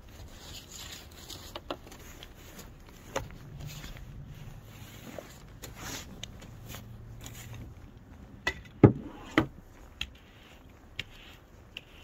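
Snow brush sweeping and scraping snow off a car's windshield, with scattered sharp knocks of the brush against the car, the loudest two close together about nine seconds in.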